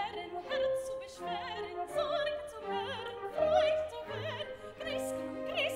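A woman's operatic voice singing with wide vibrato over a live orchestra with strings.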